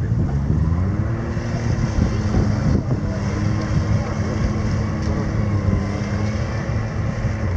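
Off-road vehicle engine running hard, its revs climbing about half a second in and then held steady for several seconds before easing slightly near the end.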